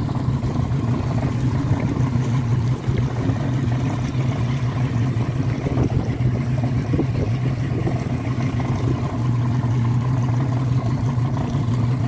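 A small boat's engine running steadily with a constant low hum, over the wash of water and wind.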